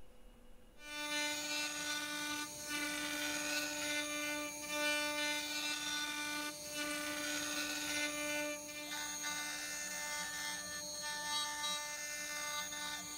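A CNC router's spindle starts up about a second in and runs with a steady whine while its bit carves a 3D relief into a wooden vise chop, the tone briefly breaking every couple of seconds as the cutter works through the wood.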